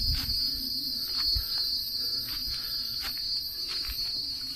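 Steady high-pitched insect chorus, with scattered footsteps and rustling through forest undergrowth.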